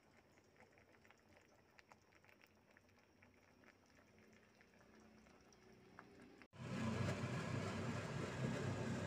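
Pot of chicken noodle soup simmering, with faint scattered bubbling pops. About two-thirds in, the sound cuts suddenly to a much louder, steady low rumble.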